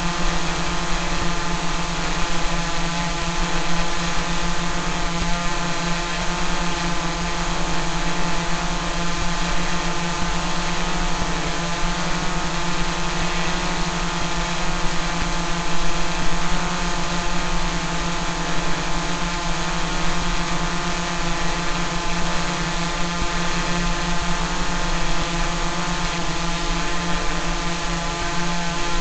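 Small quadcopter drone's propellers and motors buzzing steadily at an even pitch, as in a hover.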